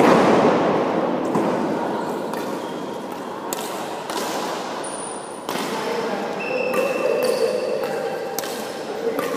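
Badminton rally: rackets striking the shuttlecock again and again, with players' footwork on the wooden court floor, echoing in a large hall. Loudest at the very start.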